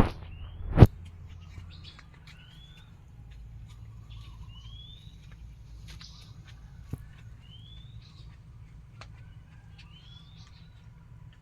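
A bird repeating a short rising whistled call every two to three seconds over a faint low background rumble. A single sharp knock sounds just under a second in.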